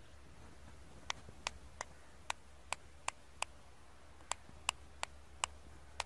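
Indian ringneck parakeet making a run of short, sharp clicks, about eleven in four and a half seconds, with a brief pause midway.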